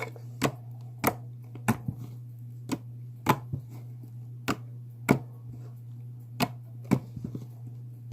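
Slime being squished and stretched in the hands, giving sharp, irregular clicks and pops about every half second to second, over a steady low hum.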